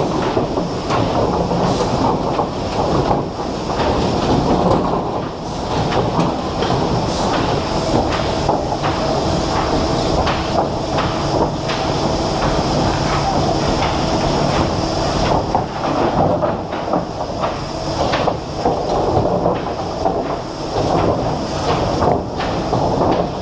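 Heavy industrial machinery running: a loud, steady rumble with constant rattling and clatter, and a faint steady hum through the middle.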